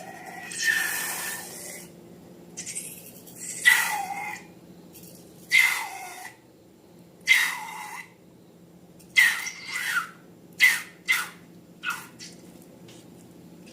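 A series of short, wet, squeaky squelches of slime and rubber being handled, about one every one to two seconds and quicker near the end. Most carry a brief squeak that slides down in pitch.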